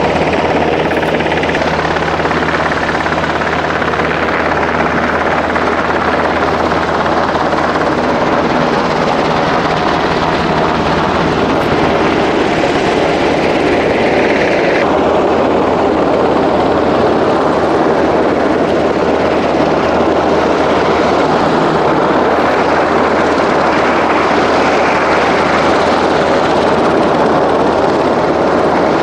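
UH-60J rescue helicopter hovering overhead: its rotor and twin turbine engines make a loud, steady noise.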